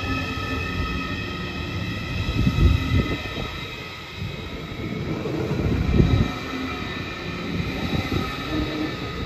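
Deutsche Bahn ICE 4 high-speed electric train passing close by, a steady electric whine over the rumble of its wheels on the track. Louder thumps come twice as bogies roll past, a few seconds apart.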